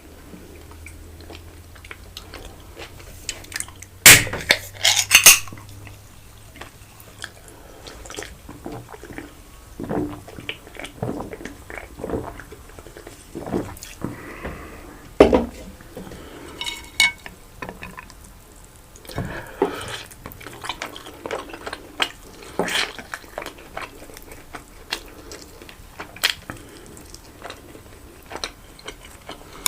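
Close-up eating sounds: chewing and mouth noises with scattered clinks of cutlery on a plate. A quick cluster of sharp clinks about four to five seconds in is the loudest part.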